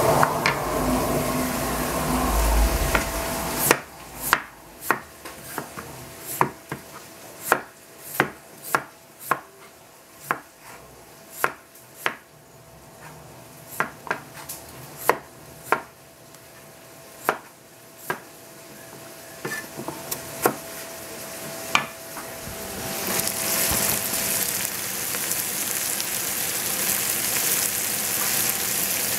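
Cleaver chopping potatoes on a plastic cutting board: sharp, irregular knocks about every half second to a second. Near the end this gives way to vegetables sizzling in a pot with a steady hiss.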